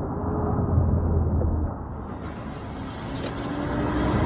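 Highway traffic rumble, with a semi truck drawing up alongside and its engine and tyres getting louder near the end.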